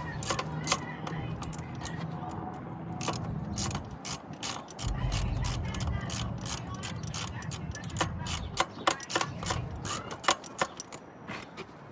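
Socket wrench ratchet clicking in quick runs of sharp clicks as a throttle body mounting bolt is tightened.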